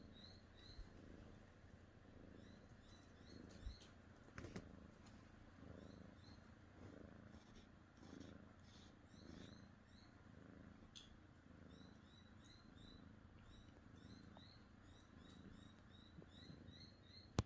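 A domestic cat purring, faint and steady, swelling and easing with each breath.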